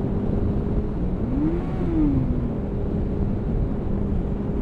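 Motorcycle engine running steadily under way, over a heavy rush of riding wind on the microphone. About a second in, an engine note rises and then falls back over a second or so, like a quick rev.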